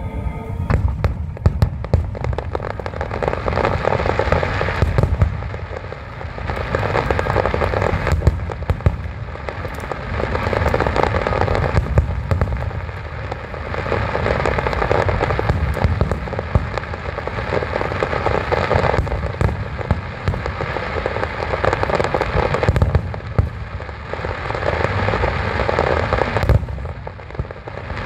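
Aerial fireworks display: a rapid run of booming bursts and crackling that swells and eases every few seconds.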